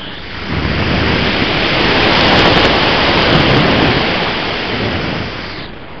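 Rush of airflow buffeting the microphone of a camera mounted on a motor glider, swelling loud about half a second in, peaking in the middle and fading near the end, as the glider banks steeply toward the ground and picks up speed.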